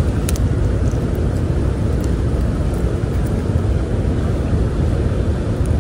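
Steady low rumble of wind buffeting the microphone, with a couple of faint clicks.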